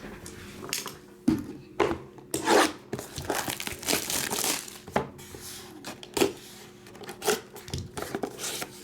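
Wrapper of a sealed trading card box being torn open and crumpled by hand: irregular crinkling and tearing rustles, with a faint steady hum underneath.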